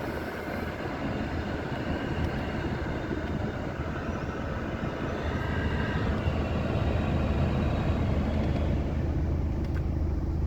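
BMW F30's heater and A/C blower fan running hard after being cleaned, a steady rush of air with a low hum, getting a little louder about six seconds in; the blower is working again.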